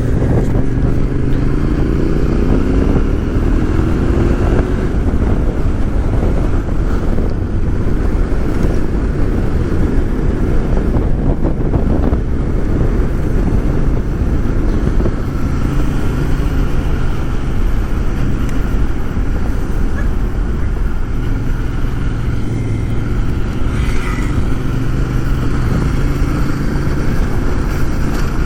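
Motorcycle engine running while riding, heard through steady wind rush, its pitch rising as it accelerates over the first few seconds, then holding a steady cruise.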